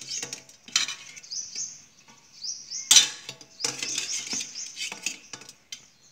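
A steel spoon scraping and clinking against a stainless-steel container and plate as food is spooned out, with a sharp clink about three seconds in and a run of clinks just after.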